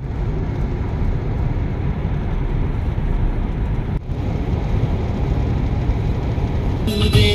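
Steady road and tyre rumble inside the cabin of a Tata Nexon EV cruising on a highway, with no engine note from the electric drive. Background music comes in near the end.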